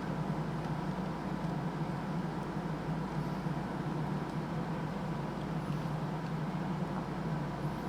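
A steady low background hum, like a fan or air conditioner, with a few faint small ticks.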